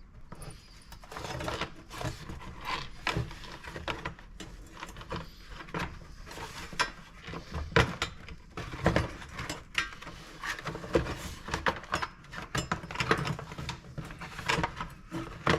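Irregular small clicks, knocks and rattles of a nut and bolt being fitted and tightened to fasten the eyelet of a plastic front valance.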